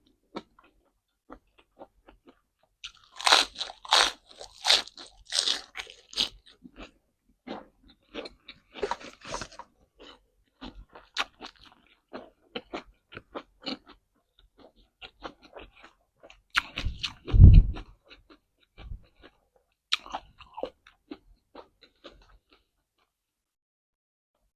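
Close-miked, loud crunching bites and chewing of raw vegetables, with a heavy run of crunches a few seconds in and softer chewing after. A brief low thump stands out about two-thirds of the way through.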